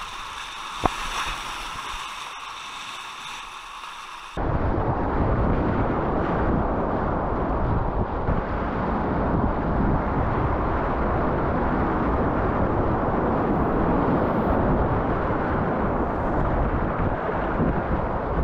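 Loud, continuous rushing and churning of river water in a whitewater rapid, picked up close by an action camera; for the first four seconds a thinner hiss with a single sharp click, then an abrupt cut to the full water noise.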